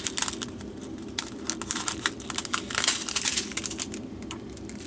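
A small plastic bag of diamond-painting resin drills being handled, making quick, irregular light clicks and crinkles.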